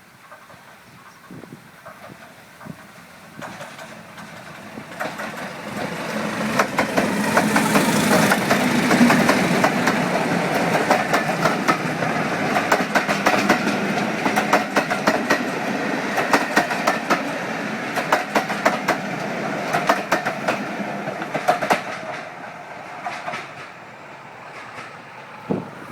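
Train passing, its wheels clicking over the rail joints in quick succession, growing louder to a peak and then fading away.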